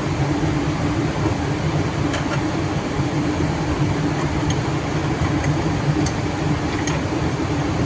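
Steady mechanical running noise: an even low hum with a few faint ticks, and a constant thin high whine over it.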